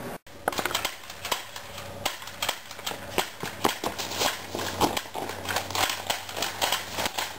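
A run of sharp, irregular snaps and pops, several a second, after a brief dropout at the very start.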